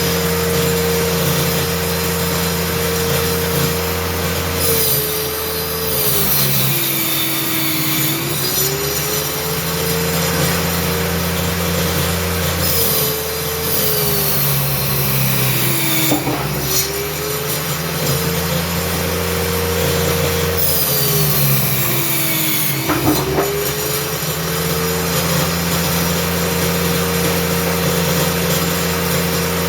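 Homemade circular saw running steadily, its motor pitch sagging three times as the blade is loaded cutting speaker-box panels, with a high rasp of the cut over each sag.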